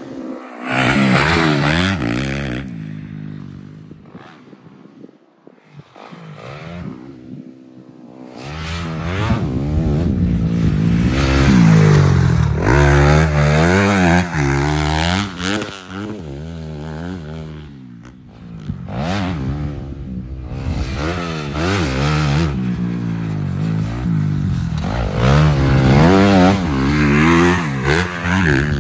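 Dirt bike engine revving hard and backing off over and over, its pitch climbing and dropping through the gears as it is ridden around a motocross track. It is quieter for a few seconds early on, then loud and near from about 8 seconds in.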